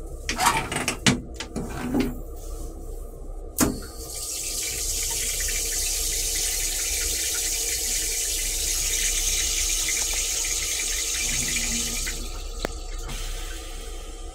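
Stainless-steel railcar toilet being flushed. A few clicks and knocks come as the flush button is worked, then about eight seconds of steady hissing fluid rinse into the bowl before it stops.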